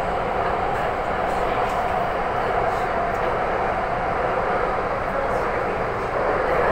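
Taipei Metro train running between stations, heard from inside the carriage as a steady, even running noise.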